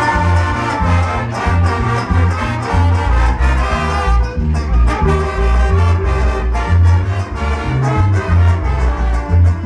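A Latin dance orchestra led by brass plays a lively carnival dance tune, with a steady heavy bass beat throughout.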